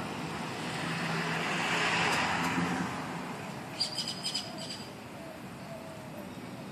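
A rushing swell of noise with a low hum rises and fades over the first three seconds, then a bird chirps a quick run of about five short, high notes a little before four seconds in.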